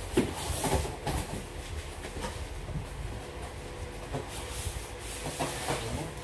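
Large cardboard TV carton being handled and opened: scattered knocks, scrapes and rustles, with the sharpest knock right at the start and another cluster about five seconds in.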